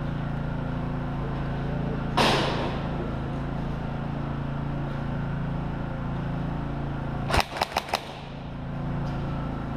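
A quick burst of about five sharp airsoft gun shots near the end, over a steady low hum, with a brief rushing noise a couple of seconds in.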